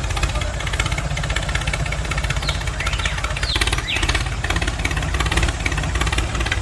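Engine idling with a steady, fast, even chug. A few short high chirps come about halfway through.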